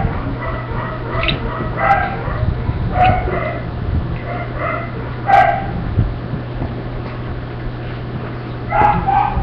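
A dog barking in short yips, several times with gaps between, over a steady low hum.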